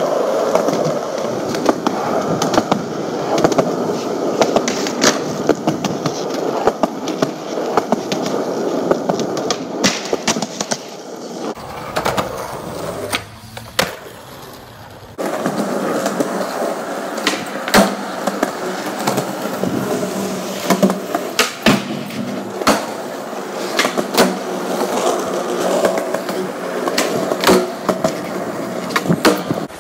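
Skateboard wheels rolling on concrete, with repeated sharp clacks of the board popping and landing tricks. About halfway through, the rolling noise drops away for a couple of seconds.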